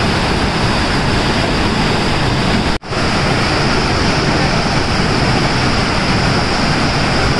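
Loud, steady rush of a rocky waterfall cascade close to the microphone, white water pouring over boulders; the sound cuts out for an instant about three seconds in.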